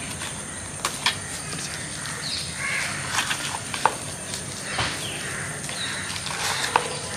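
Sharp clicks and light knocks of hard-plastic drone packaging and battery packs being handled, with a few cawing bird calls in the background.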